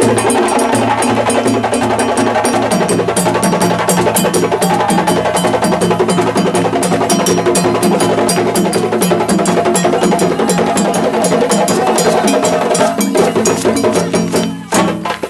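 West African drum ensemble playing a fast, dense rhythm: djembes over stick-beaten dunun bass drums, with the iron bells mounted on the dununs clanking along. The playing thins and drops briefly near the end.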